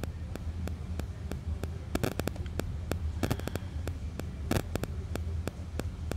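Low steady hum with many small, irregular clicks scattered through it.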